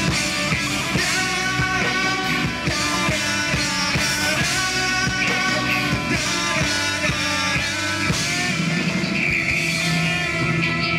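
Live rock band playing amplified through a PA: electric guitars, bass, drum kit and keyboard. The drum hits thin out near the end, leaving held notes ringing.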